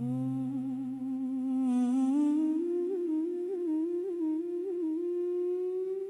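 Wordless humming opening a song: one voice gliding slowly upward, wavering through a few ornaments, then holding a long note. A low sustained note sits beneath it and drops out before two seconds in.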